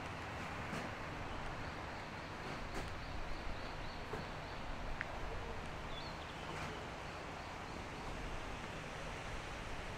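Steady outdoor background noise along a walking path, with a few faint high chirps and light clicks.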